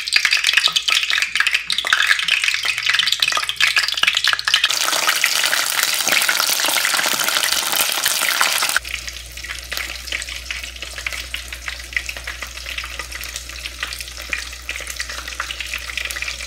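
Batter-coated chicken wings deep-frying in a pot of hot oil: a dense, steady crackling sizzle, louder for the first nine seconds or so, then softer.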